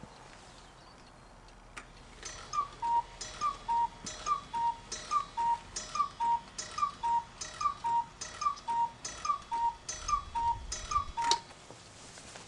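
Chalet cuckoo clock with a Regula movement striking the hour: eleven two-note cuckoo calls, high then low, a little under one a second, each with a metallic gong strike.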